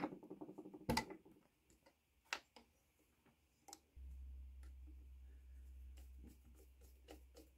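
Small metal clicks and ticks of a screwdriver and grip screws being handled on a Mauser K98 bayonet's hilt, with two sharper clacks at the start and about a second in. From about four seconds a low steady hum sits under fainter ticks as the screwdriver works the grip screw.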